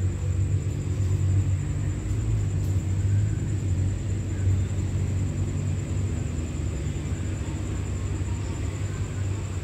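Steady low mechanical rumble with a deep hum, like a large engine running, easing off slightly toward the end.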